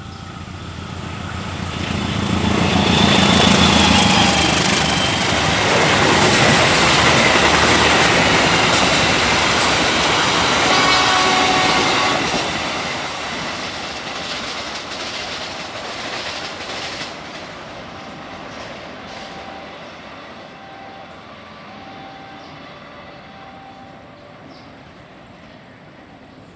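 A train passing on the line: it builds up as it approaches, is loud for about ten seconds as the cars go by with the rumble and clatter of the wheels on the rails, then fades away.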